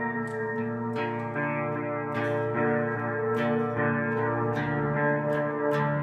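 Electric bass guitar played through effects for an ambient sound. Sustained notes overlap and ring on, and a new note is plucked about every second.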